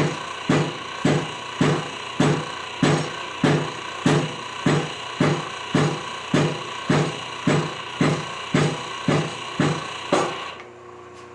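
Background music with a steady beat, a little under two beats a second over held tones, cutting off abruptly near the end.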